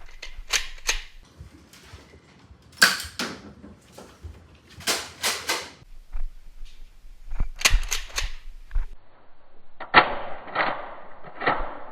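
Toy foam-dart blaster being primed and fired, sharp plastic clacks coming in several clusters. It is being fired empty, with no darts loaded.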